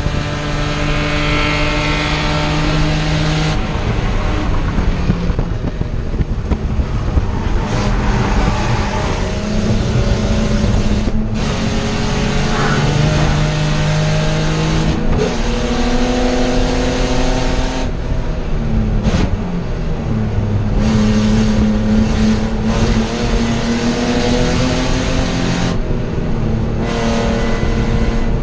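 BMW E30 race car's inline-six engine heard from inside the stripped cabin, running hard at racing speed. Its pitch climbs and then drops several times as it pulls through the gears.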